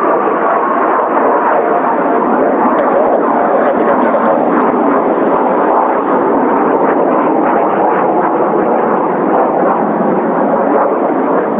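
Kawasaki T-4 jet trainers' turbofan engines passing overhead: a steady, loud jet rush, with a whine that falls in pitch at the start.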